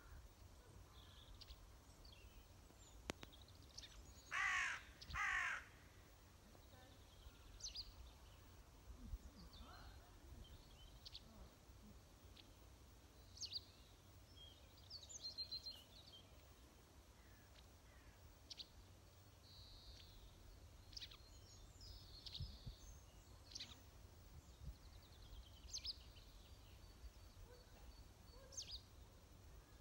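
Outdoor birdsong: two loud calls from a large bird about four and five seconds in, the loudest sounds, with faint brief chirps of small birds scattered throughout.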